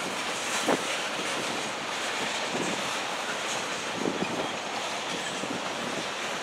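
Freight train rolling past on the rails: a steady rumble and rail noise with a few sharp wheel clacks.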